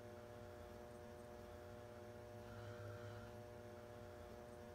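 Faint steady hum with a low drone and several steady higher tones, swelling slightly every few seconds.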